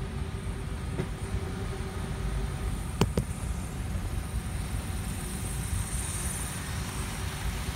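N scale model passenger train running on the track: a faint high motor whine that swells as it passes close, over a low rumble. Two sharp clicks about three seconds in.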